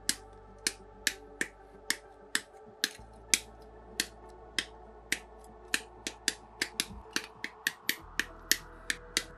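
Plastic model-kit parts being clipped off the runner with side cutters: a series of sharp snips of the nippers through the plastic gates, one or two a second at first, then quicker, about three a second, in the second half.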